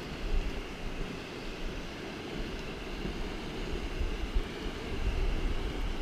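Steady rush of river rapids, with wind buffeting the microphone in low rumbles that grow stronger near the end.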